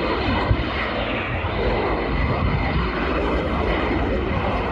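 Military fast jet passing in a flying display, its jet engine noise loud and steady, a dense rushing sound without pitched lines.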